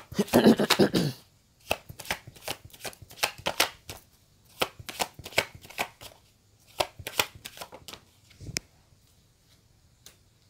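Deck of tarot cards shuffled by hand: a dense rustling burst of cards in the first second, then a run of quick, sharp card taps and flicks that thins out and stops about eight and a half seconds in.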